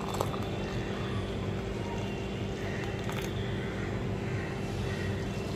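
Steady low machine hum with a few faint ticks.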